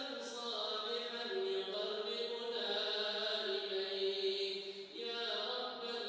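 Quran recitation: a single voice chanting Arabic verses in long, drawn-out melodic notes, with a brief breath pause about five seconds in.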